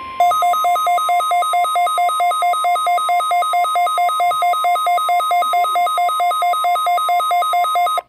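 Midland weather alert radio sounding its alarm for a Required Weekly Test: a loud two-tone beep alternating high and low about four times a second over a steady tone. It cuts off suddenly at the end.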